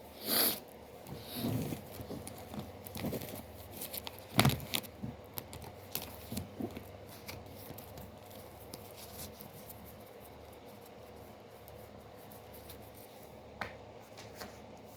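Tarot cards being handled and shuffled: scattered soft clicks, taps and card-on-card slaps, the loudest about halfway through the first half, then it goes quiet apart from one small tap near the end.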